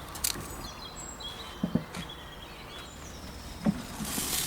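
Small birds chirping outdoors with a few light clicks. Near the end a high sizzle starts: prawn and mango skewers frying on a hot gas grill.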